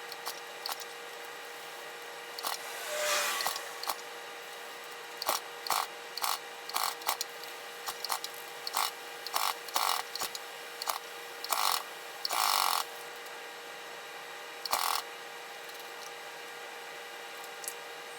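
Honda GX200-powered pressure washer with a new pump running under test, a steady hum broken by irregular short bursts of hissing, as from the spray.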